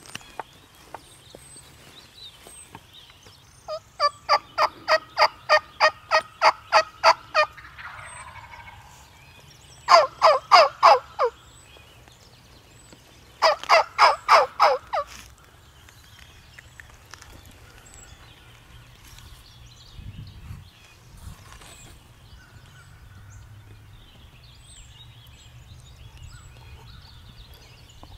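Turkey yelping: three runs of evenly paced yelps, about four notes a second, the first run the longest, with the last notes of the later runs dropping in pitch.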